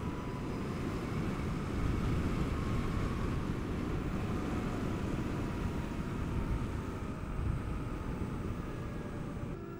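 Zero DSR electric motorcycle riding along a paved road: a steady rush of tyre and wind noise with a faint thin whine above it, and no engine note.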